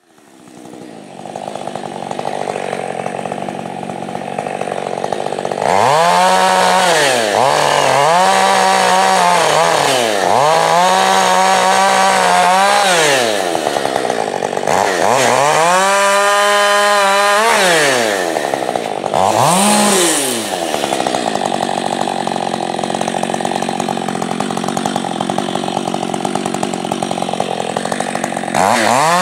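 Husqvarna chainsaw running low at first, then revved to full throttle again and again, dropping back between, as it cuts into a felled hard maple trunk. About two-thirds of the way in it holds a long steady run under load, and it revs up once more at the end.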